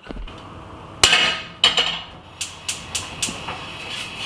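A cast-iron griddle pan set down on the metal grate of a gas hob with a loud ringing clank, then a second knock half a second later. A run of lighter, sharp clicks follows.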